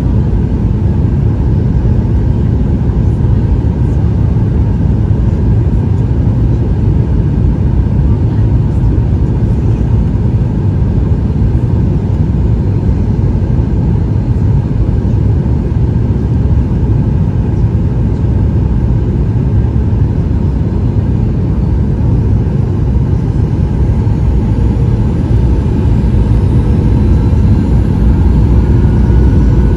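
Steady low rumble of engine and airflow noise inside the cabin of a Boeing 737-800, whose engines are CFM56-7B turbofans. A faint tone rises slightly near the end.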